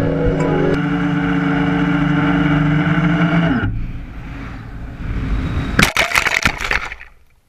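QAV400 quadcopter's motors whining steadily, then cutting out abruptly about three and a half seconds in: a catastrophic power failure. A quieter rush of air follows as it drops, then a cluster of cracks and crashes as it hits the brambles, heard through the GoPro mounted on the quad.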